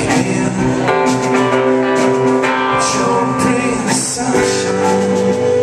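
Live rock band playing: electric guitar, bass guitar and drums, loud and continuous.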